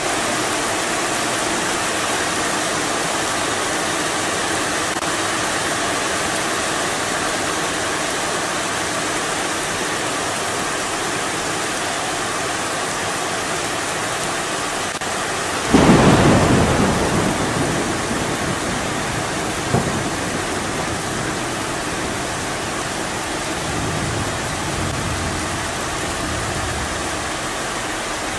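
Heavy rain falling steadily, with a sudden loud clap of thunder about halfway through that rumbles away over a couple of seconds.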